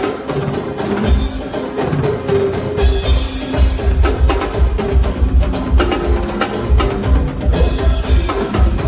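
Live band playing an instrumental passage: drums and percussion with sustained keyboard or bass notes. The kick drum drops out for the first few seconds, then comes back in with a steady beat.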